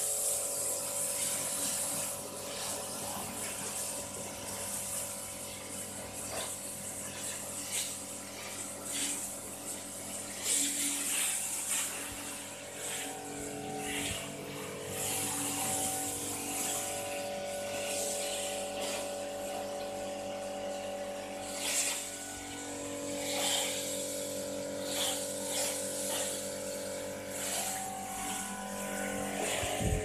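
Pressure-washer pump of a self-service car wash machine running with a steady hum, while the water jet from its spray gun hisses against a van's body panels, the hiss swelling and fading as the spray moves.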